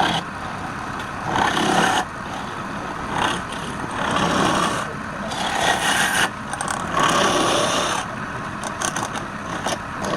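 Wood lathe running, with a turning tool scraping against the spinning wood in repeated strokes of about a second each.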